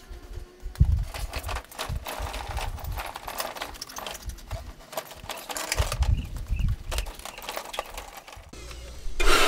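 Heavy wooden reed pump organ being dragged across a concrete floor, its wooden base knocking and scraping irregularly. Right at the end an electric hand blower starts up with a loud, steady rush of air.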